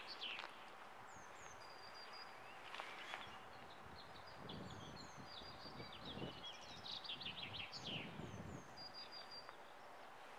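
Small songbirds chirping and trilling in short repeated calls over a quiet background, with a faint low rumble swelling and fading in the middle.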